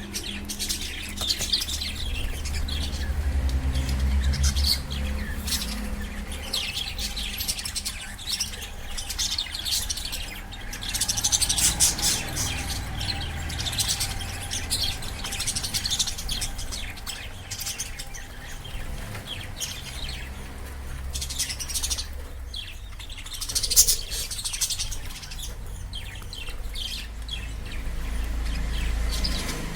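Lovebirds chirping continuously: many rapid, high chirps overlapping, busier about a third of the way in and with a loud burst a little past the middle, over a low rumble.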